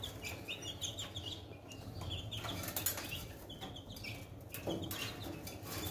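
Baby chicks peeping: many short, high chirps that fall in pitch, with a few soft rustles.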